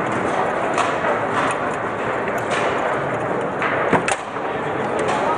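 Lehmacher foosball table in play: sharp clicks and knocks of the ball being struck and passed by the player figures and of rods clacking, several times and irregularly, the loudest about four seconds in. Underneath is the steady background noise of the hall.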